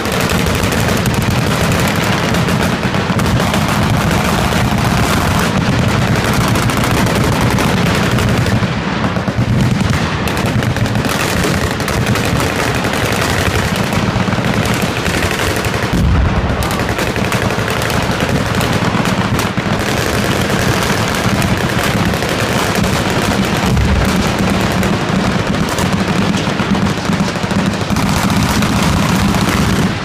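Many machine guns firing at once in dense, continuous automatic fire that never lets up. A deep boom from an exploding target stands out about 16 seconds in, with another near 24 seconds.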